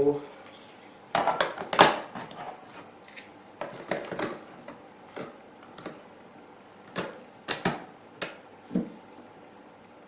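Hard plastic parts of a Miele Complete C3 canister vacuum being handled: scattered clicks, knocks and light clatter with short pauses between, the loudest about two seconds in.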